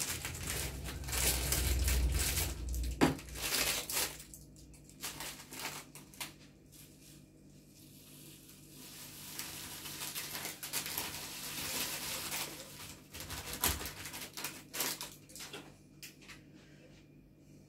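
Plastic bag of dried wild thyme crinkling and rustling as it is handled and the brittle dry herb is shaken out into a large glass jar, in irregular crackling bursts, loudest near the start and again about two-thirds of the way through.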